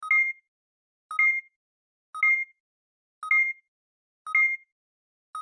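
Short electronic two-note beep repeated evenly about once a second, the pulse of a TV news intro sting, with silence between beeps.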